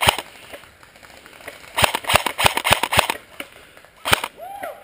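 Airsoft guns firing: a single sharp shot at the start, then a quick string of about five shots at roughly three a second a little under two seconds in, and one more shot near the end.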